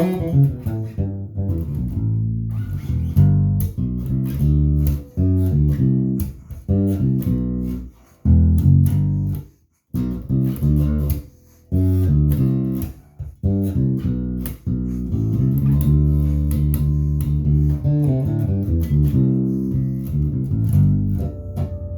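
Harley Benton JJ-55 OP electric bass strung with DR Pure Blues nickel strings, playing a plucked bass line of low notes that breaks off briefly a few times.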